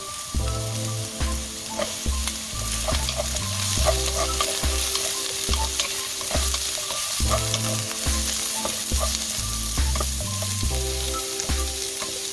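Sliced onion, green onion and carrot sizzling in a hot stone-coated nonstick wok, stirred and scraped with a wooden spatula in frequent small clicks. A backing track with a repeating bass line plays underneath.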